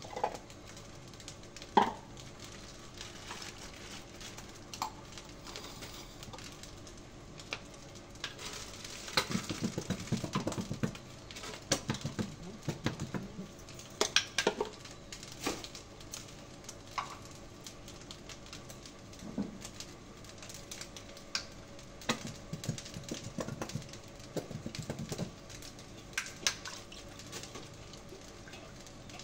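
Cooking utensils clinking, knocking and scraping against a pot and containers, on and off in several busy stretches with quieter gaps between.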